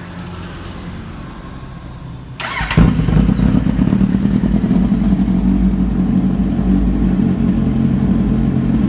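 Kawasaki Z800's inline four-cylinder engine, breathing through an aftermarket slip-on exhaust that steps up from 2 to 2.5 inches, cranked on the electric starter about two and a half seconds in. It catches almost at once and settles into a loud, steady idle.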